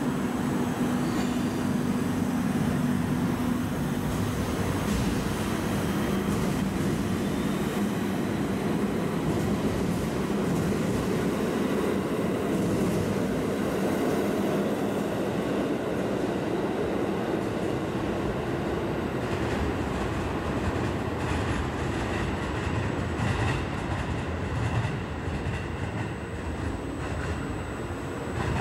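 JR Hokkaido 721 series electric train pulling out of the station platform: motors and wheels run steadily as the cars move past, with wheel-on-rail clatter.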